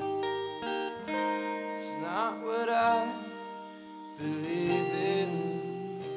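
Acoustic guitar picking chords as a song plays on, with a wordless melodic line, like a voice, bending and wavering in pitch about two seconds in and again near the five-second mark.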